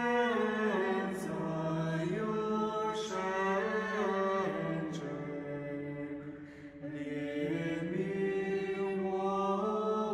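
Orthodox church chant: men's voices singing a slow melody over a held low drone note, pausing briefly a little past the middle before going on.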